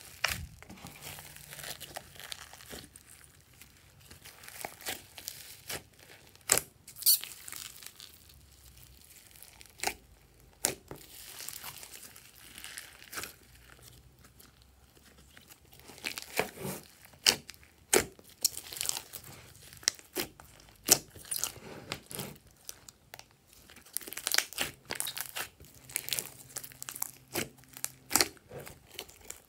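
Hands kneading, stretching and squishing a large mass of glossy slime mixed with foam beads, making irregular sticky pops, crackles and squelches that come thick and fast in bursts.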